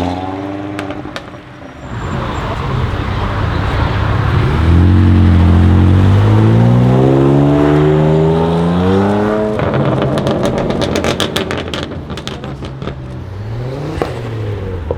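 BMW M2 Competition's twin-turbo straight-six, fitted with TTE740+ turbos and an Akrapovic exhaust, accelerating hard, its note climbing steadily for about five seconds. Then the driver lifts off abruptly, about ten seconds in, and a quick run of exhaust crackles and pops follows for a couple of seconds.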